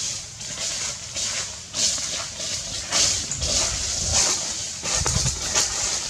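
Macaques making a series of short, breathy calls about a second apart, with a few low thumps.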